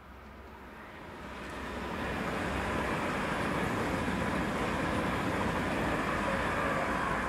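SBB electric passenger train passing at speed on the near track: its wheel and rail rumble and rush builds over the first two seconds, then holds loud and steady with a faint whine as the carriages go by.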